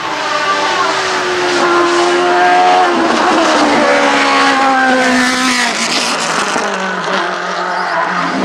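Osella FA30 sports-prototype race car engine at high revs as the car climbs and passes, its pitch changing clearly about three and six seconds in.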